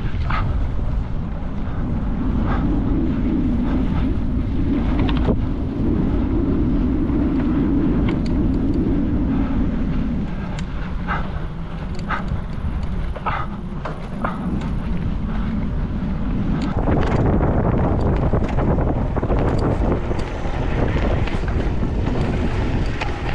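Motocross motorcycle engine running with a low rumble that swells and fades, then grows louder and noisier from about 17 seconds in, with scattered short clicks throughout.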